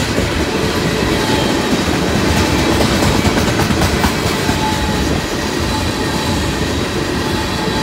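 Loaded freight gondola cars rolling past at close range: a steady, loud rumble and clatter of steel wheels on the rails.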